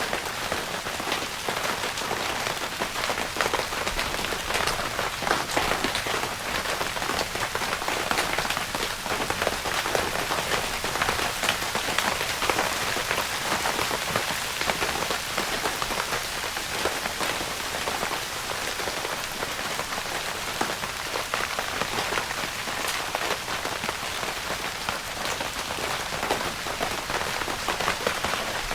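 Steady rain pattering on a tent's fabric roof, a dense, even patter of many small drop ticks.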